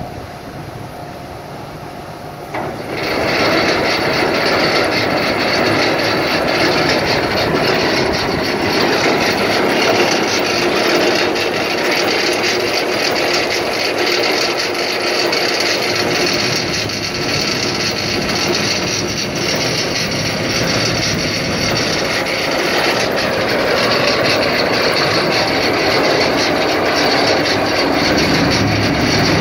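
A large John Deere tractor's diesel engine running steadily, a loud, even rushing whir that comes up suddenly about three seconds in.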